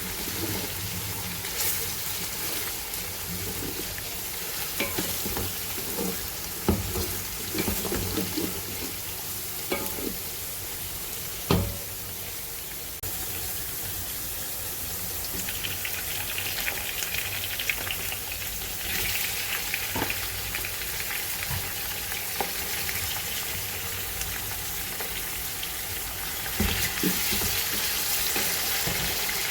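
Food sizzling as it fries in oil in a cooking pot, being stirred, with a few sharp knocks of the utensil against the pot. The hiss grows brighter about halfway through.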